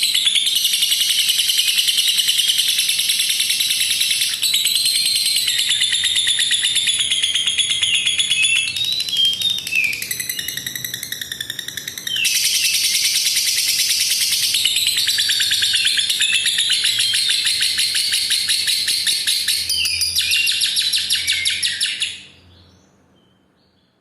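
Lovebird's long ngekek song: a rapid, unbroken chatter of high notes, changing pattern and softening for a few seconds in the middle, then stopping about two seconds before the end.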